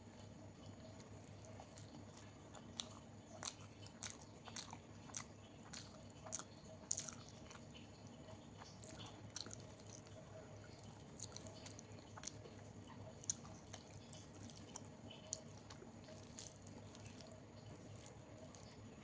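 A person chewing a meal of dal, rice, fried potatoes and okra: soft, wet mouth clicks and smacks with the odd crunch. They come thickest a few seconds in and grow sparser later.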